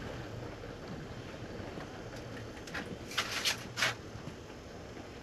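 Steady wind noise, with four short rustles about three seconds in.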